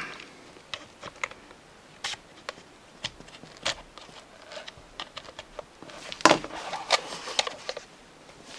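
Small screwdriver clicking and scraping against the hard plastic face plate and jaw parts of a Teddy Ruxpin's head as it is pried at to remove hot-melt glue, in irregular taps with a louder knock about six seconds in.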